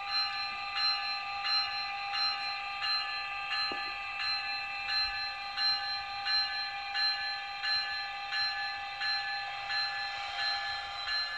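Simulated locomotive bell from a sound-equipped HO scale Atlas ALP-45DP model locomotive, ringing evenly about one and a half strikes a second over a steady hum.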